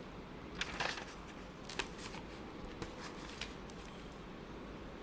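Handling noise: a few light clicks and rustles of small objects being handled. There is a cluster of clicks about a second in and single clicks after that, over a faint steady room background.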